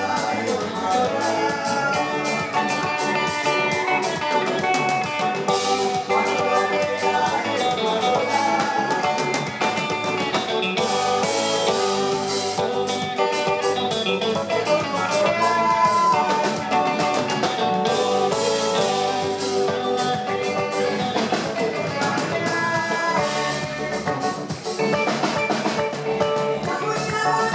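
Live afro-soul band playing: guitar over a drum kit in a steady groove.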